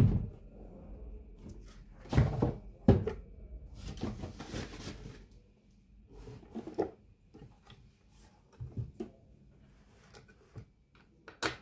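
Handling noise from the opened Markbass Little Mark Tube 800 amplifier chassis being moved and set down on a workbench against its speaker cabinet: a series of knocks and thunks, the heaviest two and three seconds in, a scraping stretch soon after, and a sharp knock near the end.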